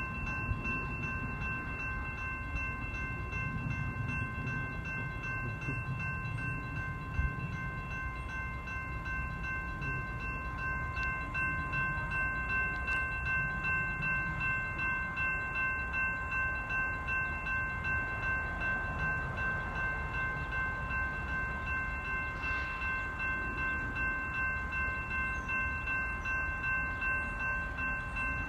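Railroad grade-crossing warning bell ringing continuously, its clang pulsing evenly and more plainly in the second half, over a low rumble.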